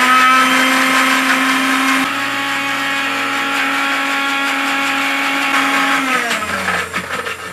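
Electric mixer-grinder running at full speed, blending carrot pieces, ginger, lime juice and water in its stainless steel jar with a steady motor whine. Near the end it is switched off and winds down, its pitch falling.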